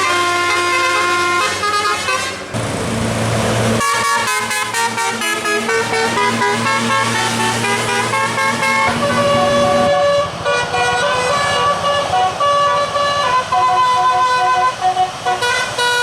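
Bus musical air horn ('telolet') playing a quick tune of stepped, sustained notes. About two and a half seconds in there is a brief hissing burst, and a low steady drone then runs under the tune until near the middle.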